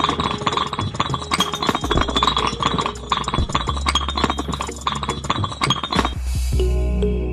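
Small clay bricks clinking and tapping against each other in quick, irregular succession, over background music. The clinking stops about six seconds in and the music carries on.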